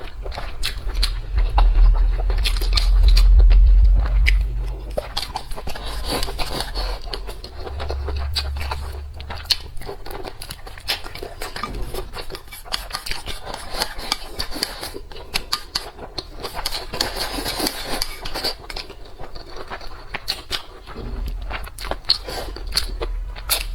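Kitchen handling sounds: utensils and cookware scraping and clicking over and over, with a heavy low rumble during the first few seconds.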